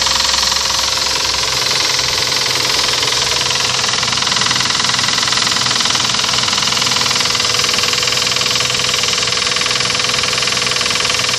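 Toyota 1GZ V12 engine running steadily with a rapid knock, a sign of an internal fault in the engine.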